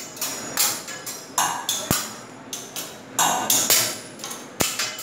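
Teppanyaki chef's metal spatulas clacking and clanging against each other and the steel griddle during a spatula routine: a string of sharp strikes spaced unevenly, a few of them ringing briefly.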